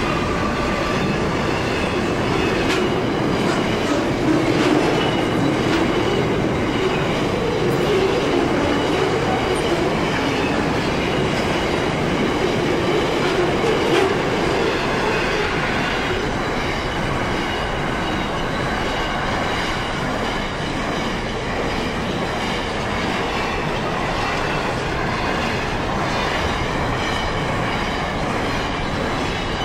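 Freight wagons rolling steadily past on steel wheels, first flat wagons loaded with steel and then container wagons, making a continuous rumble and clatter over the rails with a faint high wheel squeal. The rumble is heaviest during the first half, while the steel-laden wagons go by.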